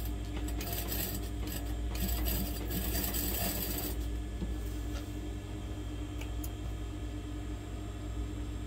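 Sewing machine running, stitching a seam to tack a loose fabric flap down flat; it stops about five seconds in, leaving a few light clicks of fabric handling.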